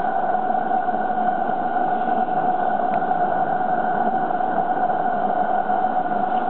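Accucraft Baldwin War Department model locomotive running, a steady whine over a hiss with no separate beats.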